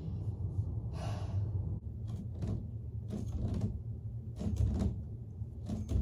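Irregular soft knocks and thumps over a low steady hum.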